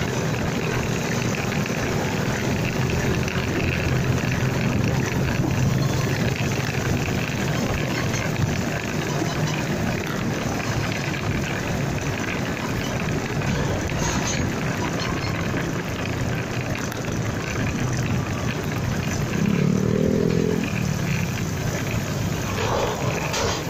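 Motorcycle on the move: a steady rush of engine, road and wind noise, with a short wavering pitched sound about twenty seconds in.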